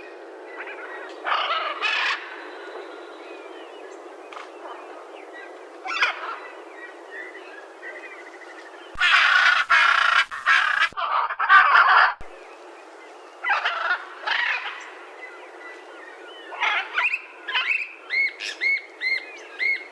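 Macaws giving loud, harsh squawking calls in separate bouts. The longest and loudest bout comes about halfway through, followed near the end by a run of short, quick calls.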